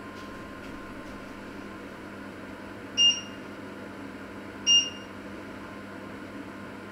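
Two short electronic beeps, about a second and a half apart, from a kitchen appliance's controls, over a steady background hum.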